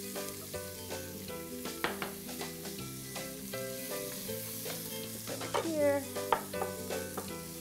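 Diced onion sizzling in hot bacon fat in a pot, with a spoon stirring and knocking against the pot.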